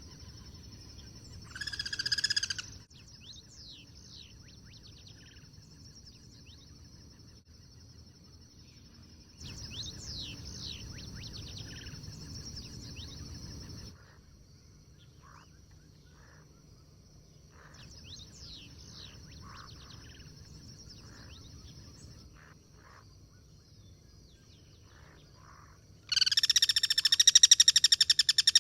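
Guira cuckoos calling: a short, harsh call about two seconds in, then a long, loud call made of rapid pulses near the end. Between them there are soft, quick descending chirps over a steady high-pitched buzz.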